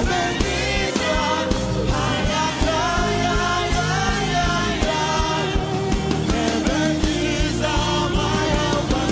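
Gospel worship music: singing over a band with a steady drum beat.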